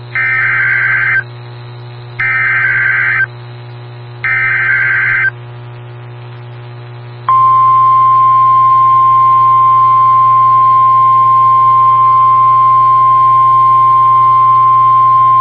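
Emergency Alert System alert as broadcast on NOAA Weather Radio: three short screeching bursts of SAME header data about a second apart, then, about seven seconds in, the long steady single-pitch warning alarm tone. It heralds a severe thunderstorm warning.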